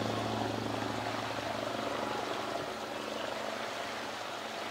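A steady low mechanical drone that slowly fades away.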